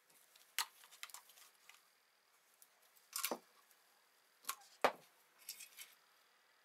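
Hands handling a small plastic oil bottle and a twist drill bit on a steel tube clamped in a vise: a handful of sharp clicks and taps, the loudest about five seconds in.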